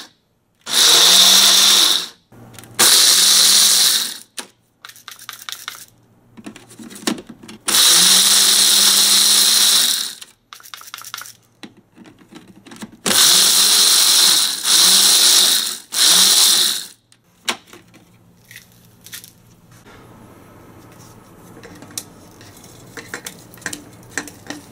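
Ninja blender run dry in about six short pulses of one to two seconds, grinding mesquite pods, with rattling between the pulses. After about 17 seconds the motor stops, and only quieter clicks and knocks follow.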